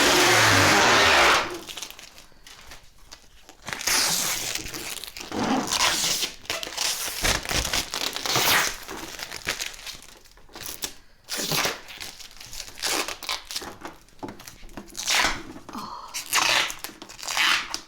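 Protective plastic wrap being peeled off a new refrigerator and crumpled. A long, loud tearing peel runs for about the first second and a half. Shorter bursts of peeling and crinkling follow, on and off.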